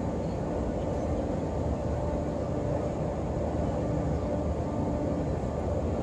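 Steady murmur of a vast crowd of pilgrims, heard from above as a constant low drone with no single voice standing out.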